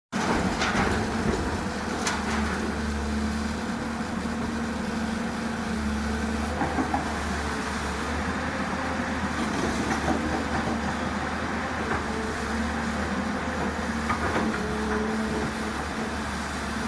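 Tata Hitachi excavator's diesel engine running steadily while it works soil, with a few sharp knocks now and then.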